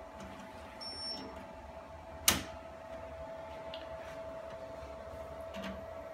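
Mitsubishi K60 dye-sublimation photo printer's paper and ribbon drawer pushed shut, latching with one sharp click about two seconds in. A steady thin whine and low hum from the running printer sit underneath.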